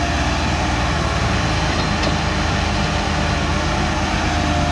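Kobelco crawler excavator's diesel engine running steadily under load as it works, with a steady thin whine over the low engine drone.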